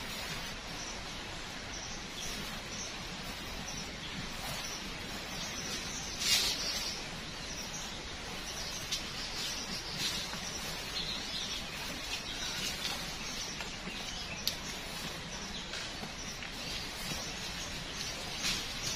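Forest ambience: birds calling over a steady background hiss, with a few short sharp snaps or rustles, the loudest about six seconds in.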